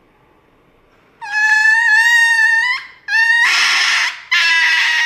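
Small dog screaming as it is given an injection: three long, shrill, high-pitched cries, starting about a second in, the first rising in pitch at its end and the later two raspy.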